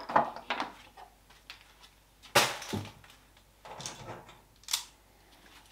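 Hand cutters snipping through a solar panel's red and black leads to take off the waterproof connectors: a few separate sharp crunching snips and clicks, the loudest about two and a half seconds in, with tools and parts being handled.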